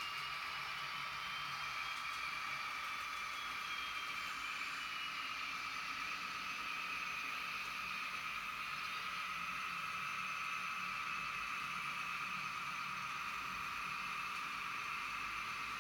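Model trains running on the layout: a steady electric motor whine, with a higher tone that rises slightly and then falls over the first several seconds, over a steady hiss.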